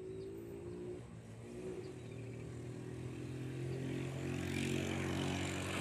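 A motor vehicle's engine running steadily, growing louder over the last couple of seconds.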